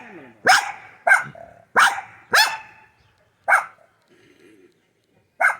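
Dog barking in sharp, separate barks, about two a second for five barks, then a pause of a couple of seconds before one more near the end. It is alert, on-guard barking at a squirrel.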